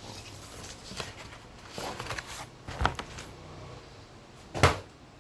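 A package being handled: rustling and a few light knocks, a sharper knock near the middle, and a loud thud about four and a half seconds in.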